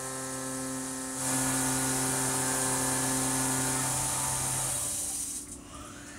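Tormach CNC mill spindle running with a steady whine as a half-inch chamfer mill cuts aluminium, over a hiss of coolant mist spray. The hiss gets louder about a second in, and the whine and hiss die away near the end as the tool lifts clear of the finished part.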